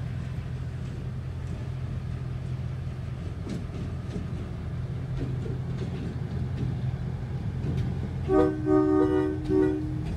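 A diesel locomotive passes at close range with a steady low engine rumble. Near the end its air horn sounds a chord in about three short blasts.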